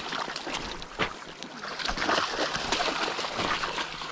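A dog splashing through shallow river water, with irregular splashes and sloshes and a sharper splash about a second in.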